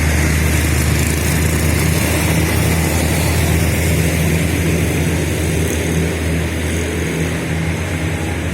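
Large bus's diesel engine running close by: a loud, steady low drone with engine noise, easing slightly near the end.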